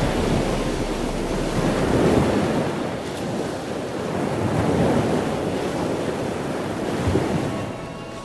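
Ocean surf breaking and washing up the beach, swelling in surges a few times and fading out near the end.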